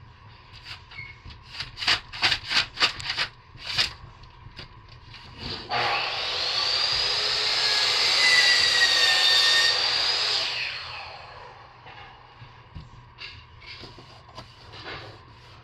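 A power tool cutting into wood, running loud with a whine for about five seconds and then winding down. Before it, a quick string of sharp knocks.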